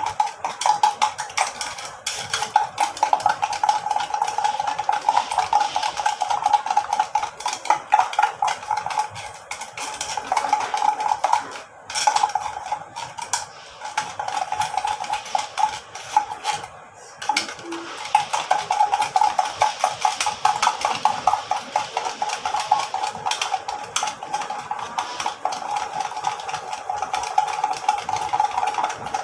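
An egg with a little tapioca starch being beaten fast in a small glass bowl: rapid, steady clinking of the utensil against the glass, pausing briefly twice near the middle.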